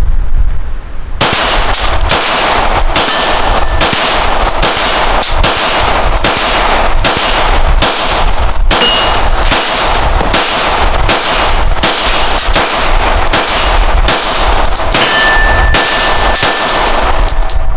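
Springfield Armory 1911 DS Prodigy 9mm pistol firing a long, steady string of shots, about two a second, some thirty rounds in all, starting about a second in.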